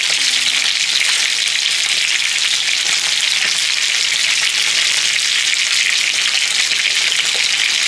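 Fish frying in hot oil, a steady sizzle.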